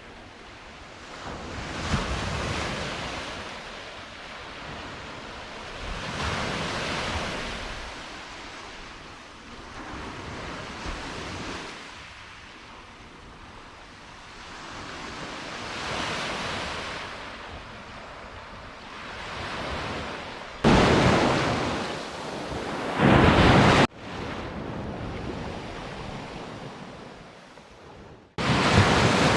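Sea waves breaking and washing on the shore, swelling and fading every few seconds, with some wind on the microphone. The sound turns abruptly louder and drops away a few times in the later part.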